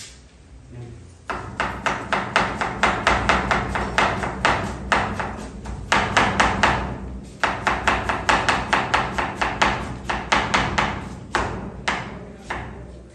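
Kitchen knife shredding a cabbage on a wooden chopping board: rapid knocks of the blade striking the board, several a second, starting about a second in and broken by a few short pauses.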